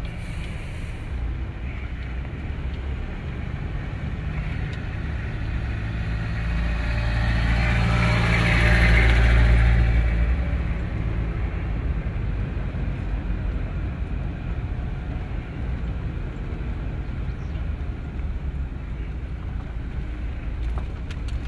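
A motor vehicle running, with a steady engine hum and road noise that swells louder for a few seconds about eight seconds in, then eases back.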